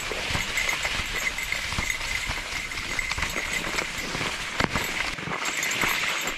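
Kicksled runners sliding over packed snow, with crunching footfalls in the snow; the low rumble drops away about five seconds in as the sled slows down.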